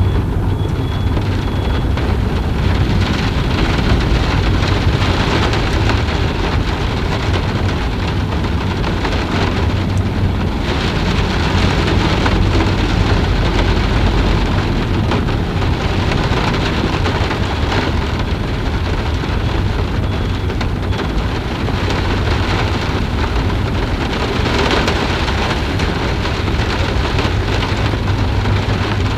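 Steady rain, a dense even hiss of falling water, with a constant low rumble underneath.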